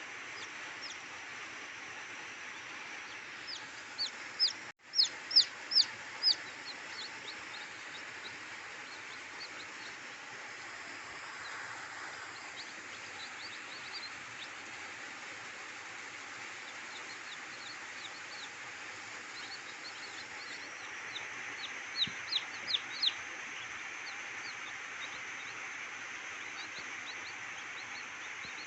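Chickens calling on a farm: a run of about five short, sharp high calls a few seconds in and another run of four near the end, over a steady background hiss.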